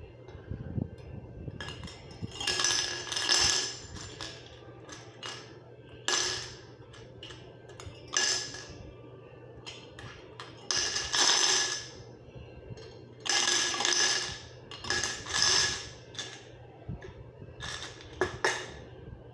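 Nails being dropped into empty drink cans, clattering and clinking against the thin metal with a ringing note, in a series of separate short pours with pauses between.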